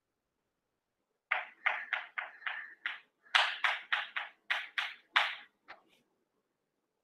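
Chalk writing on a chalkboard: about a dozen short strokes in quick succession, starting a little over a second in and stopping about a second before the end.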